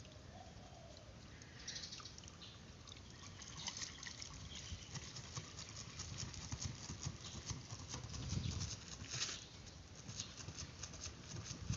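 Faint trickle and patter of soapy wash liquid draining out of a truck intercooler onto gravel as it is tipped.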